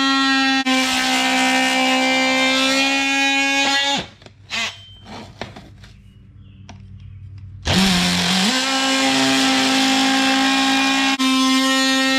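DeWalt oscillating multi-tool plunge-cutting a vinyl floor plank with a somewhat dull blade, a steady high buzz. It stops about four seconds in, leaving a few seconds of faint handling sounds, then starts again with its pitch rising as it comes up to speed and cuts on.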